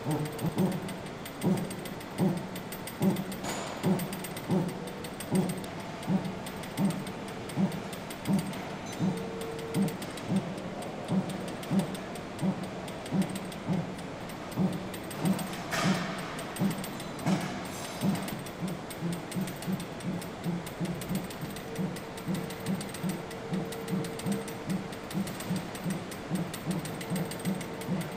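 Hand-worked ratchet of a manual pull-back rig being pumped to tension webbing straps on a gun barrel, a regular click with each stroke at about one and a half a second. About two-thirds of the way through the strokes become quicker, about two a second, and a little quieter.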